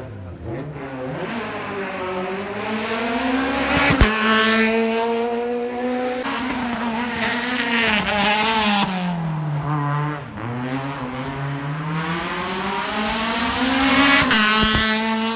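Peugeot 208 rally car's engine revving hard under full throttle, its pitch climbing and then dropping sharply at a gear change with a crack about four seconds in. The note falls steadily as the car slows for a hairpin and climbs again as it accelerates out, with more sharp cracks near the end.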